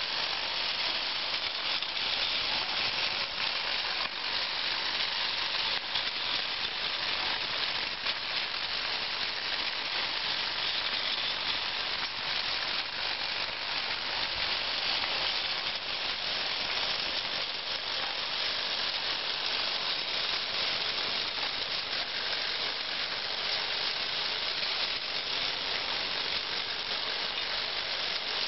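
Meccano ping-pong ball roller running: a steady, dense mechanical rattle from its gearing and drive, with small clicks as ping-pong balls roll and knock along its perforated metal strip tracks.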